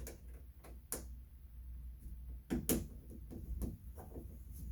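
Scattered light clicks and taps of small shower-knob kit parts being handled and fitted, one every second or so with a close pair about halfway through, over a low steady hum.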